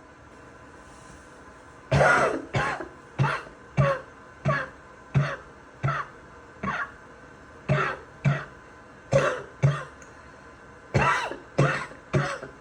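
A person coughing: wet, barking coughs, about sixteen short coughs in three bouts with brief pauses between them, starting about two seconds in.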